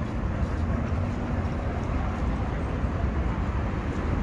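Steady city street noise: a low rumble of traffic with voices in the background.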